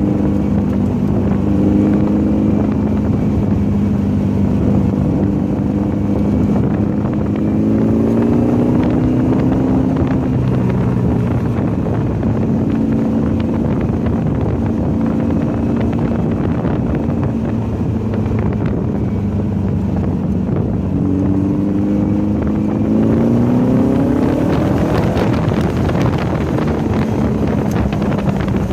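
Volkswagen race car engine running hard around a track, holding a steady pitch and twice climbing in pitch as it accelerates.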